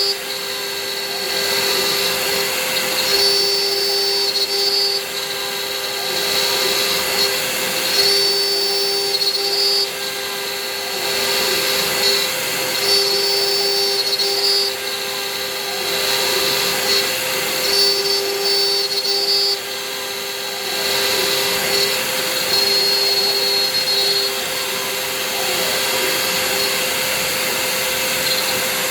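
Hobby CNC milling machine running. A steady motor tone is overlaid with high whining tones that start and stop every second or two as the machine's moves change.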